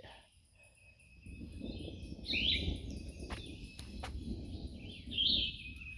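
Low rumble of distant thunder starting about a second in, with birds chirping twice over a faint steady high drone of insects.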